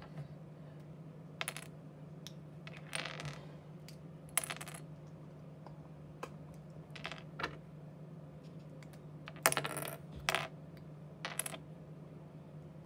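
Small plastic LEGO bricks clicking and clattering against each other and the tabletop in scattered bursts, as pieces are picked through. The loudest clatter comes about two-thirds of the way in. A steady low hum runs underneath.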